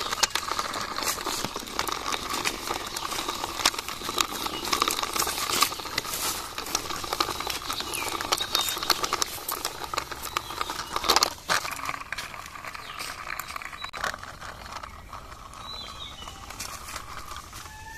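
Plastic toy auto-rickshaw's wheels rolling and scraping along a rough concrete wall, with many small rattling clicks. It goes quieter about two-thirds of the way through.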